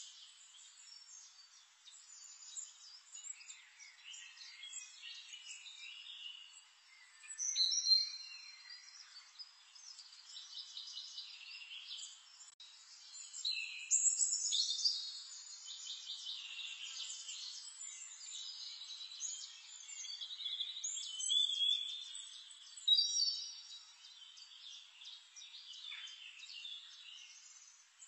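Birds chirping and twittering, many short overlapping calls and trills, with several louder bursts of twittering. The sound is thin, with nothing low in it.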